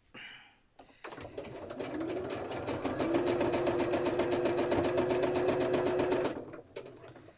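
Sewing machine stitching free-motion with the feed dogs dropped. The motor speeds up over the first couple of seconds, then runs steadily with a rapid needle clatter and a steady hum, and stops about a second before the end.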